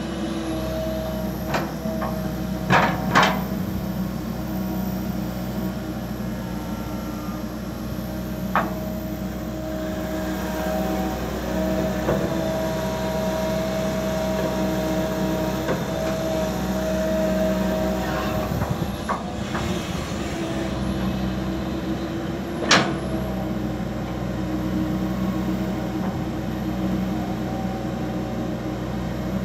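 Komatsu PC200LC hydraulic excavator working: its diesel engine runs steadily under load while a hydraulic whine rises and falls as the boom, arm and bucket move. Sharp knocks from the bucket and linkage come several times, a cluster in the first few seconds and a loud one later on.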